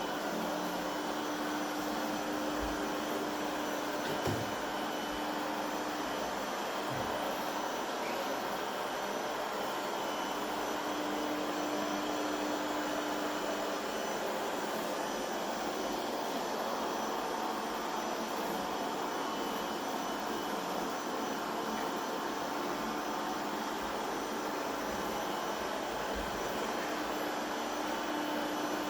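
PREMBOT P3 robot vacuum running its automatic cleaning cycle: a steady whir from its suction fan and brushes, with a low hum that comes and goes and a few faint knocks.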